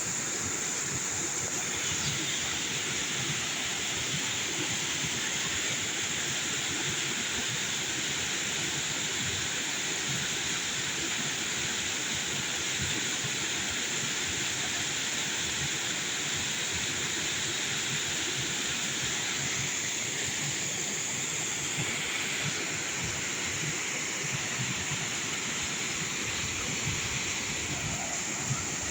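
Waterfall's water rushing in a steady, unbroken roar.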